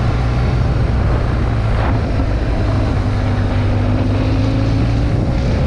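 Motorcycle engine running steadily under way at a constant pace, with a faint tone in it rising slowly about halfway through.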